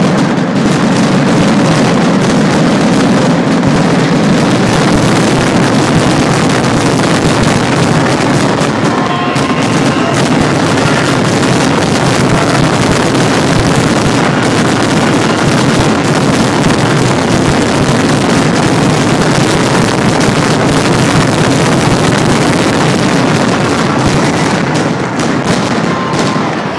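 Fireworks finale barrage: shells bursting so fast that they merge into one continuous, loud din, easing slightly near the end.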